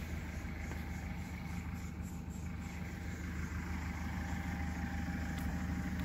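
Diesel engine of a JCB 4CX backhoe loader running steadily, an even low drone with no revving.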